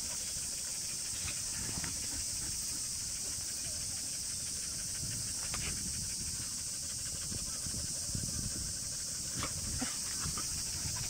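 Dog panting softly and rustling in the grass as it squirms on its back while being rubbed, over a steady high hiss.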